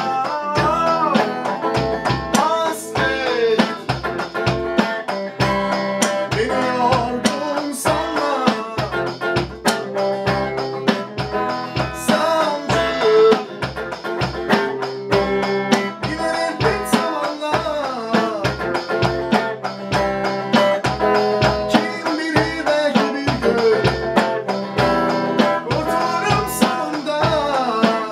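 Stratocaster-style electric guitar and an electronic drum kit playing a song together: a melody line with pitch bends over a steady kick-drum beat.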